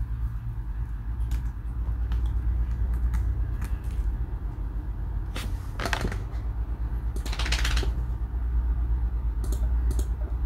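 Scattered clicks of computer keyboard keys and a mouse as text is edited, over a steady low hum, with two short rushes of noise about six and seven and a half seconds in.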